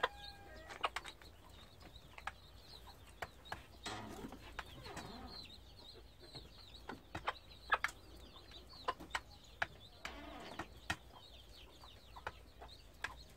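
Hen pecking boiled egg from a metal bowl: sharp, irregular taps, with pheasant chicks peeping high and continuously and the hen clucking now and then.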